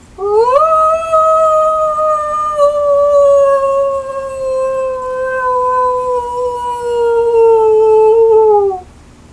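A person imitating a wolf howl with cupped hands: one long howl that swoops up quickly at the start, then slowly sinks in pitch for about eight seconds before breaking off near the end.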